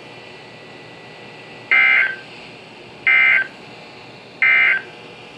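NOAA Weather Radio SAME end-of-message code: three short bursts of high-pitched warbling data tones, a little over a second apart, marking the end of the broadcast warning.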